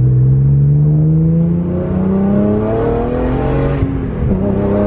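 BMW E46 M3's S54 straight-six, through a Status Gruppe V1 muffler with gutted catalytic converters and Euro headers, accelerating through a gear. The exhaust note climbs steadily in pitch for about four seconds, drops at an upshift, and then starts climbing again.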